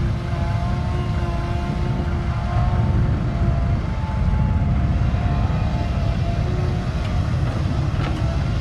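Komatsu crawler excavator working, its diesel engine giving a steady low drone with a wavering whine above it. The sound swells a little about three and four seconds in.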